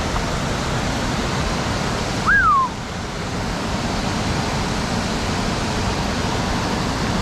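Steady rush of a mountain creek's flowing water. About two seconds in, a single short whistle-like note slides up and then falls away, briefly the loudest sound.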